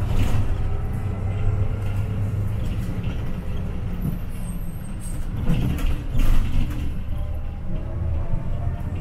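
City bus engine running as the bus drives, heard from inside the bus, a steady low hum. There are brief louder rushes of noise just after the start and again about six seconds in.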